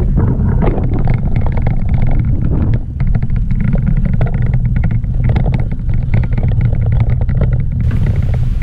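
Loud wind rumble on the microphone and tyre noise from a mountain bike riding along rough asphalt, with frequent small rattling knocks as the bike and camera mount shake.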